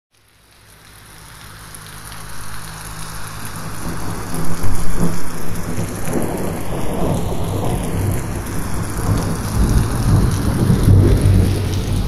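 Steady rain falling on forest leaves, fading in from silence over the first few seconds, with a deep low rumble running under it.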